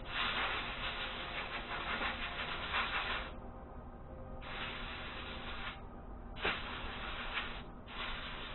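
Compressed air hissing in repeated blasts as a dirty chainsaw air filter is blown clean: a long blast of about three seconds, then three shorter ones of about a second each with brief pauses between.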